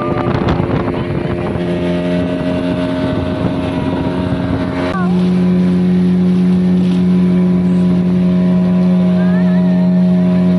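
Motorboat engine running steadily at speed, with wind and water rushing past. About halfway through, the engine note changes abruptly to a steadier, slightly louder hum.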